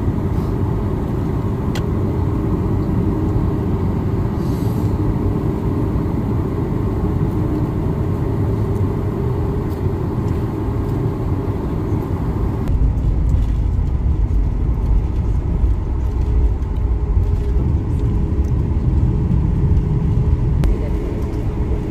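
Steady cabin rumble of a Boeing 737 MAX 8 taxiing on the ground. About 13 seconds in, the sound changes abruptly: the deep rumble grows louder and the higher hiss falls away.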